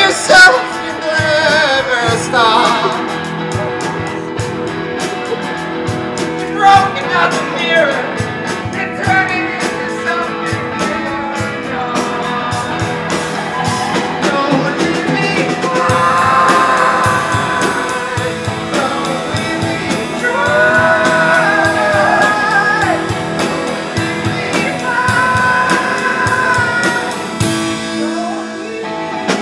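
Live rock band playing: a vocalist singing into a microphone over guitars and a drum kit.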